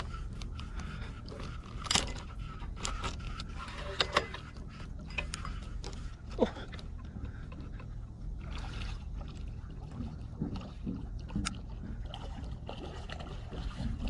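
Spinning rod and reel being worked while playing a hooked eel: scattered clicks and knocks from the reel and rod handling over a steady low rumble of wind and water.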